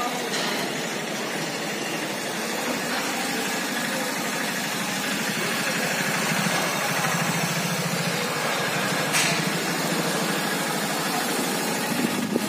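Mini dal mill machine running: a steady mechanical noise that holds throughout, with a short sharp knock about nine seconds in.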